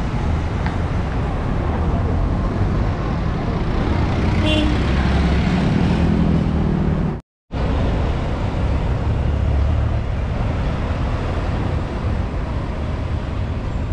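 City street traffic: engines of passing cars, jeepneys and motorcycles with a steady low rumble. The sound cuts out for a moment about halfway through, then carries on.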